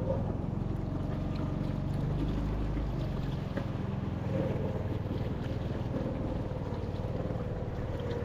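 Small motorboat engine running steadily. A wavering higher tone joins in about halfway through.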